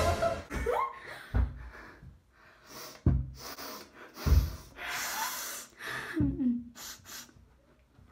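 Girls' wordless vocal sounds close to the microphone: a string of short gasps, breaths and brief voice noises with pauses between, including one longer breathy rush near the middle.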